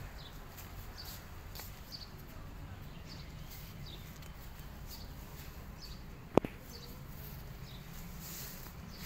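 A small bird chirping with short high calls about once a second over a low outdoor rumble, with a single sharp click a little past the middle.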